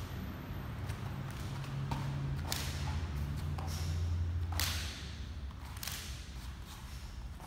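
A kung fu fan (a war fan) snapped open and shut and swung through the air: a few sharp snaps and swishes, the strongest near the middle, with soft thuds of footwork and a low steady hum underneath.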